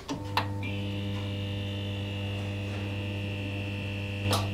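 Neon-sign buzz sound effect: a steady electrical hum with a thin high whine joining in under a second in, and sharp crackling clicks at the start and near the end.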